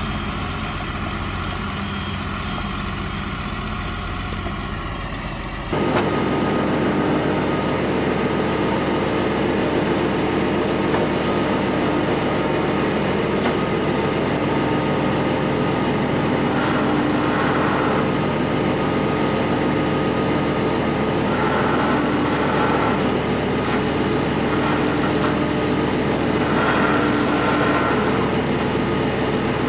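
Large truck engine running steadily. About six seconds in, the sound changes abruptly and gets louder.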